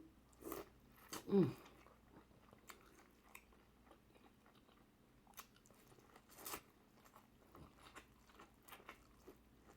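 Close-miked eating: faint chewing with scattered mouth smacks and small crunches, the sharpest about six and a half seconds in. A short, falling hum of the voice comes about a second and a half in.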